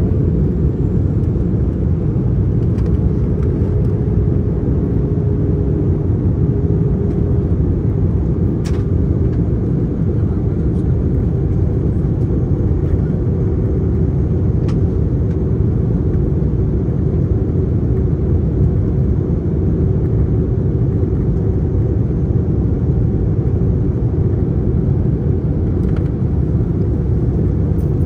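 Steady cabin noise inside an Airbus A321 in flight: an even, deep roar of engines and airflow, with a faint steady hum and a couple of faint clicks.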